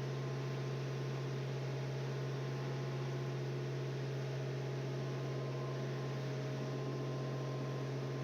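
Steady low machine hum that does not change in pitch or level.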